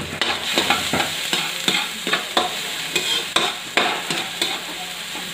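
Minced garlic frying in oil in a metal wok, with a light sizzle under repeated scrapes and taps of a metal spatula against the wok as it is stirred, about three strokes a second.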